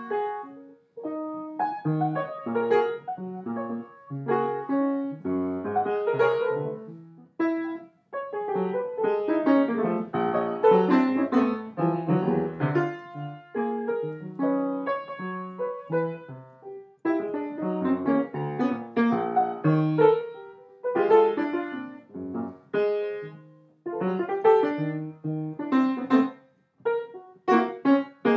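Piano music: a steady stream of struck notes and chords, broken by a few brief pauses between phrases.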